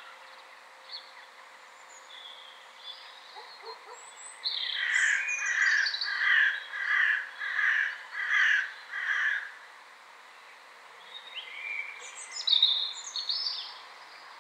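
A bird calling outdoors: a run of about seven loud repeated calls, roughly one every two-thirds of a second, from about a third of the way in. More chirps come near the end, and a few faint ones at the start.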